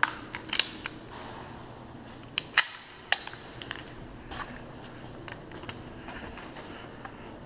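A run of sharp, irregular clicks and cracks, the loudest about two and a half seconds in and another about half a second later.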